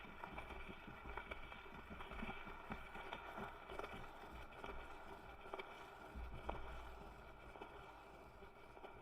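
Vinyl record surface noise: scattered crackles and pops over a low rumble, slowly fading away.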